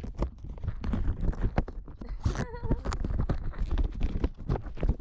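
Handling noise picked up by a GoPro inside a latex balloon: irregular knocks, rubbing and scraping of the rubber and the camera being moved, over a low rumble. A short wavering tone comes about halfway through.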